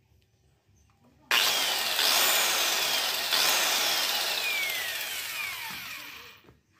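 KPT hand-held angle grinder with a toothed saw blade, switched on suddenly about a second in and running loud. Its whine falls in pitch as it slows, and the sound dies away shortly before the end.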